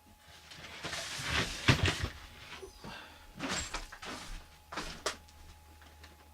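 Rustling and knocking as dolls are handled and set down. The loudest is a thump a little under two seconds in, followed by two shorter bursts of rustling.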